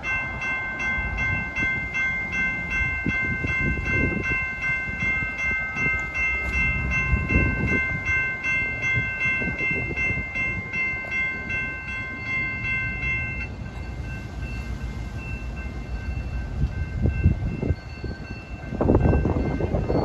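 Railroad crossing signal bells ringing steadily, a repeating multi-toned ding over lowered gates as a train approaches. About two-thirds through, the loudest bell cuts out and a fainter ringing continues. Low gusty rumbling comes and goes underneath, strongest near the end.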